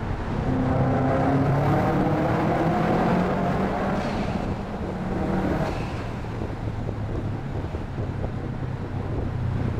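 Subaru EJ20 flat-four boxer engine with a fully de-catted exhaust and Fujitsubo back box, pulling under acceleration. Its exhaust note rises steadily in pitch for about five seconds, then drops back to a lower, steadier drone.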